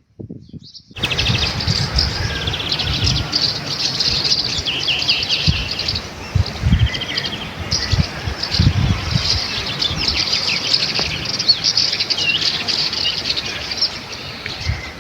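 Many small birds chirping and trilling together in a dense chorus, starting about a second in, with irregular low thumps and rumbles underneath.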